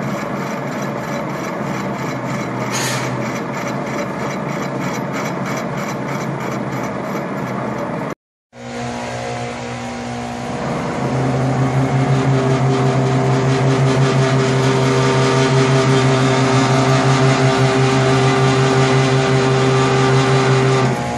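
Metal lathe running with a steady hum while facing off a steel wheel hub, with a brief high hiss about three seconds in. The sound breaks off about eight seconds in, then the lathe runs again and grows louder and steadier from about eleven seconds.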